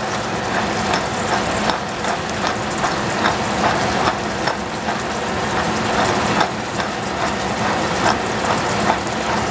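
Hand-turned spice grinder cranked over a saucepan, its mill giving a run of crunchy clicks about two a second, over the steady sizzle of squash cooking in the pan.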